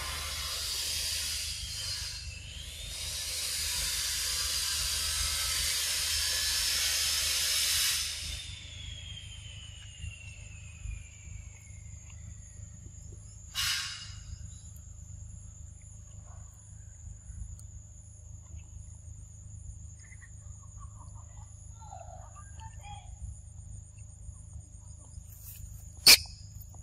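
High buzzing insect chorus for about the first eight seconds, ending in a falling whine. Then quieter forest background with a thin steady high insect tone, a short click about 14 s in, and a sharp tap about 26 s in, the loudest sound.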